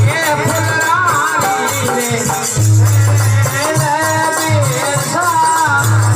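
Rajasthani devotional bhajan music: a gliding melody line over a pulsing low accompaniment and rattling hand percussion.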